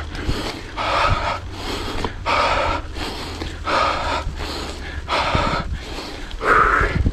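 A mountain biker's heavy panting from hard exertion: a steady run of loud breaths in and out, about one a second, with the hardest breath near the end.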